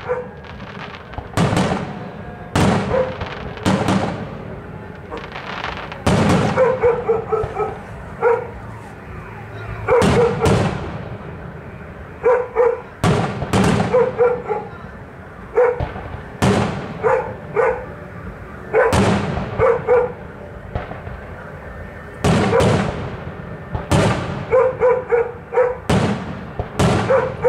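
Aerial fireworks bursting at irregular intervals of about one to two seconds, each bang trailing off in crackle and echo. Between the bangs a dog barks in short runs of two to four barks.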